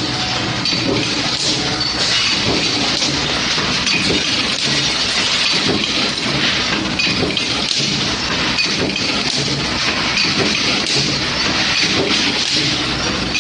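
Steady din of a hot nut forging press line running, with a constant clatter of metal parts over the machinery.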